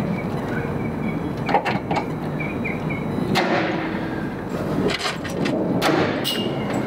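Scattered sharp clicks and knocks of hand-tool work on a solar panel's aluminium frame and stainless steel hinge during riveting, over a steady low background rumble.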